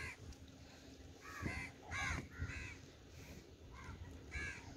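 Crows cawing: about half a dozen short, harsh caws spread across a few seconds, some in quick pairs.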